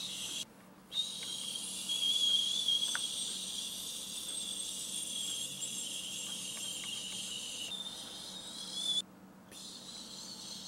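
High-pitched whir of a small battery-powered toy motor running in stretches. It cuts out briefly about half a second in and again about nine seconds in, then starts again.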